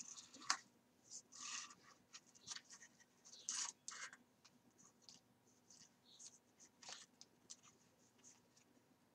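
Faint, scattered rustling and scratching of thread being drawn through the holes of paper pages as they are hand-sewn, with the paper stack shifted and pressed, and one sharp tick about half a second in.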